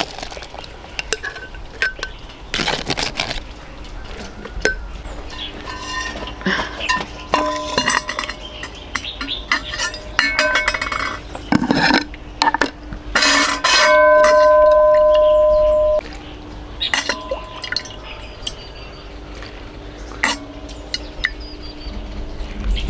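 Spoons and dishes clinking and knocking at a meal, in many scattered light taps. About fourteen seconds in, a loud steady tone sounds for about two seconds and then cuts off.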